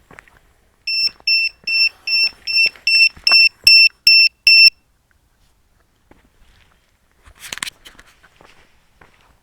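Electronic low-battery alarm buzzer beeping a high tone about eleven times, two to three beeps a second, growing louder, then stopping. This warns that the drone's battery is running low. A brief rustle follows later.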